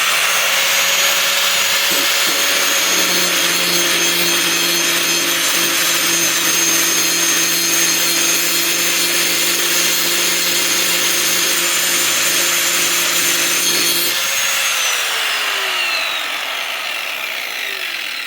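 Hand-held grinder grinding the underside edge of a steel lawn mower blade to sharpen it, running steadily at full speed. About fourteen seconds in it is switched off, and its whine falls as it spins down.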